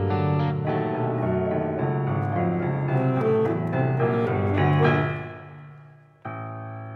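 Contemporary chamber music for alto saxophone, electric guitar, piano and marimba: dense, busy, rapidly changing notes that fade away about five seconds in. Just after six seconds a sustained chord enters suddenly and holds.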